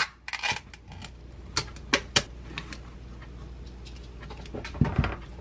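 Light clicks and crinkles of kitchen handling: a foil lid peeled off a plastic yogurt cup, a few sharp taps, then a clear plastic clamshell container rattled and set down with a short clatter near the end.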